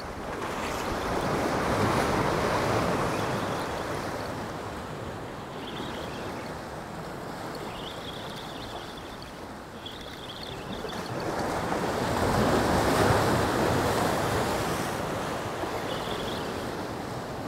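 Sea swell washing and breaking over jetty rocks: two long surges that build and fade, one about two seconds in and a louder one around thirteen seconds.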